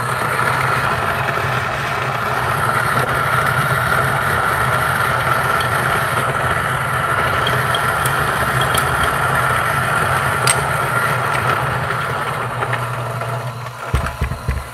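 Niche Zero conical-burr coffee grinder running steadily as it grinds a 17 g dose of espresso beans. The motor hum stops about a second before the end, followed by a couple of short knocks.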